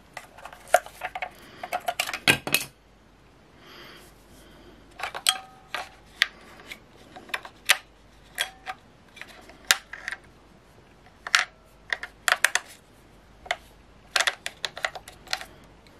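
Batteries being handled and pressed into the spring-loaded plastic battery compartment of a weather station's display console: a run of irregular sharp clicks and clacks, some with a short metallic ring, with a pause of about two seconds near the start.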